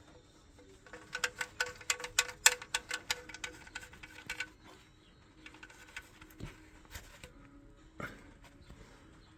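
Socket wrench ratchet clicking in a quick run of metallic ticks, about five or six a second, as the oil drain plug is screwed back in, followed by a few scattered clicks and knocks.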